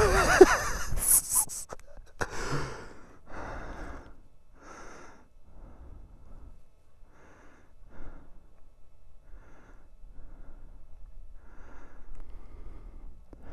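A man breathing hard and out of breath: about ten heavy breaths, one every second or so, after a short voiced whoop that rises in pitch at the start.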